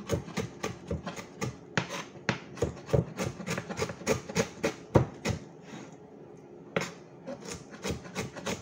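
Chef's knife slicing ginger on a cutting board: quick, even chops of the blade striking the board, about four to five a second. The chopping pauses for about a second and a half a little past the middle, then resumes.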